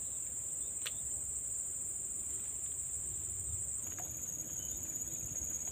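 Steady high-pitched chorus of insects, whose pitch steps down slightly about four seconds in, over a faint low rumble, with a single brief click about a second in.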